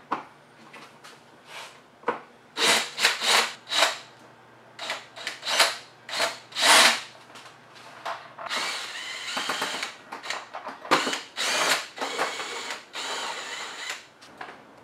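Cordless drill-driver fitted with a T27 Torx bit, running in short bursts to back out the fairing screws, then in a few longer runs of about a second each in the second half.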